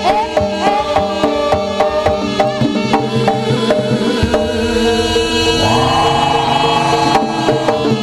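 Live Javanese jaranan-style ensemble music: hand-drum strokes keep a quick regular beat under sustained ringing tones and a wavering, sung or blown melody, growing fuller about halfway through.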